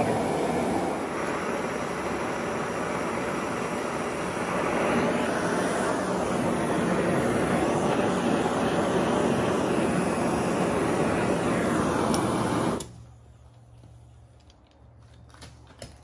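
Oxy-acetylene torch hissing steadily while it heats steel to melt in solder, then shut off abruptly about thirteen seconds in.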